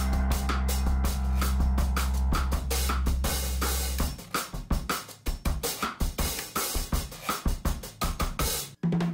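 Background music with a steady drum-kit beat. The bass drops out about four seconds in, leaving the drums alone, and the music breaks off briefly near the end.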